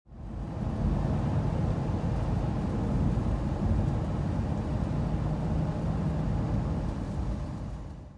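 Steady low rumble of a semi truck driving at road speed, engine and road noise heard inside the cab. It fades in at the start and fades out near the end.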